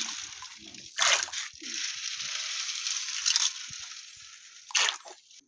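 Water pouring and sloshing in a vessel, with two knocks: one about a second in and one near the end, as the pouring dies away.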